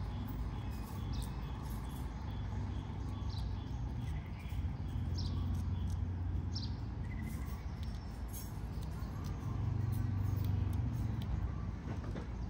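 Outdoor background: a steady low rumble that swells twice, with a few very short, high chirps scattered through it.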